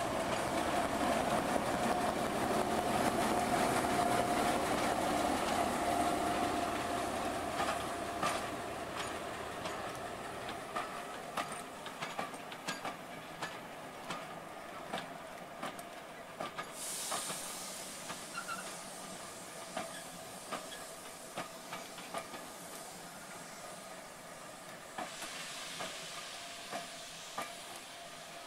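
Diesel shunting locomotive running as it hauls a train of coaches away, its engine sound fading over the first ten seconds. Then the coaches' wheels click over rail joints as they roll past, with a short burst of hiss a little past halfway and a softer hiss near the end.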